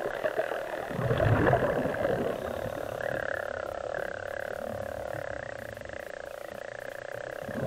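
Underwater sound of a scuba diver breathing through a regulator: a burst of exhaled bubbles about a second in, then a quieter wavering hiss, over a steady hum.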